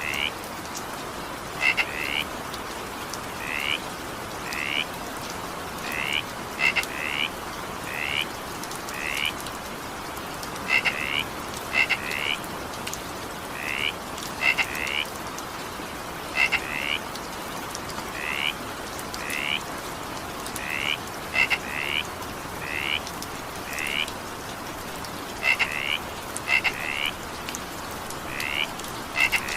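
A frog calling over steady rain: short, high croaks, often two in quick succession, repeating about once a second, over an even hiss of falling rain.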